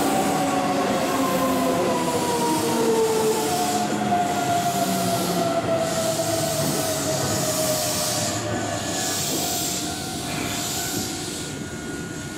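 Keihan electric train running through the station and slowing, with a whine of several tones falling steadily in pitch over a steady rushing hiss of running noise. The sound eases off toward the end.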